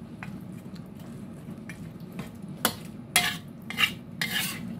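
Metal spatula stirring and scraping okra and meat around a black wok as it stir-fries, with a few short, sharp scrapes in the second half over a low steady hum and light sizzling.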